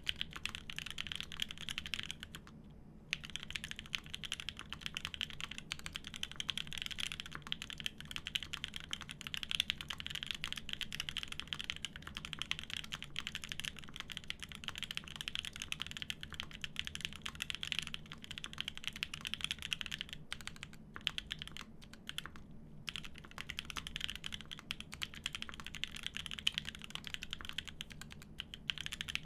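Continuous fast typing on a Semo TKL mechanical keyboard with lubed Konpeitou switches on an aluminium plate and GMK keycaps. The keystrokes run together in a steady stream, with a short pause about three seconds in and a few brief gaps about two-thirds of the way through.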